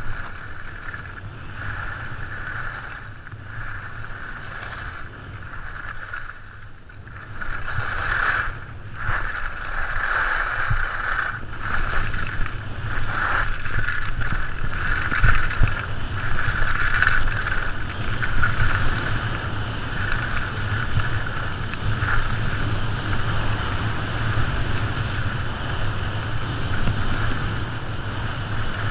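Wind rushing over the microphone and skis sliding and scraping on packed snow during a downhill ski run, growing louder about eight seconds in as the skier picks up speed.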